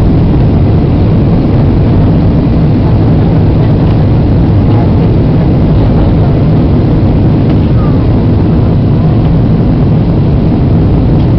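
Steady, loud cabin noise inside a Boeing 737-800 descending in flight: a low, even rumble of its jet engines and airflow.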